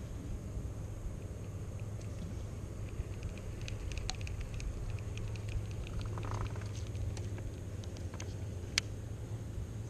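Light scattered clicks and ticks of a fishing reel being handled and cranked on a lure retrieve, with one sharper click near the end, over a steady low hum.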